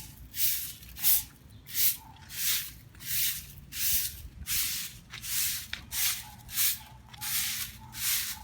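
A broom sweeping the ground in steady, regular strokes, about three swishes every two seconds.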